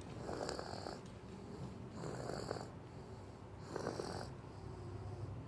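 A baby snoring in her sleep: three snores in a steady rhythm, one every second and a half or so.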